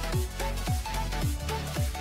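Electronic dance music with a beat of deep kicks that slide down in pitch, about two a second, under a short repeating synth melody.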